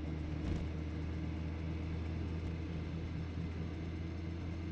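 Honda Gold Wing GL1800's flat-six engine running steadily while riding, mixed with steady wind and road noise, picked up by a helmet-mounted camera.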